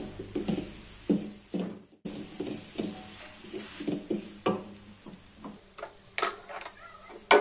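Wooden spatula scraping and knocking against a metal wok while stir-frying vegetables and scrambled egg, in short irregular strokes, with a brief dead gap about two seconds in.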